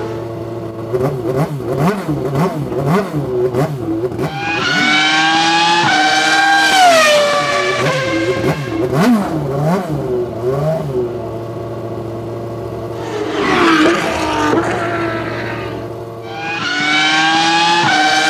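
Car engine revving hard, as from a race car: the pitch wavers up and down at first, then climbs and slides sharply down about six seconds in, and does so again near the end.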